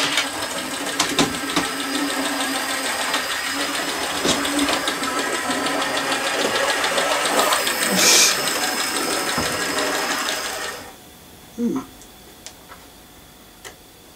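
Model pannier tank locomotive running on the layout track: a steady motor whirr with fast, even wheel ticking, louder for a moment about eight seconds in. It stops suddenly about eleven seconds in, leaving only a few light clicks.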